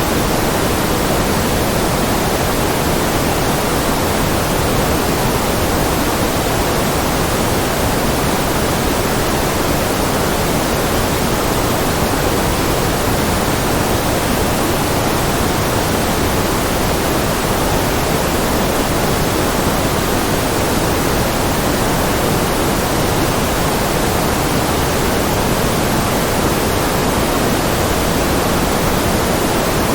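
Steady electronically generated white noise: an even, unchanging hiss with no breaks or variation.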